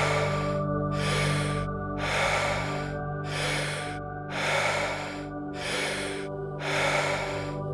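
Rapid, deep, audible breathing, one forceful breath about every second in a steady rhythm: the power breaths of a Wim Hof breathing round. A steady ambient music drone plays underneath.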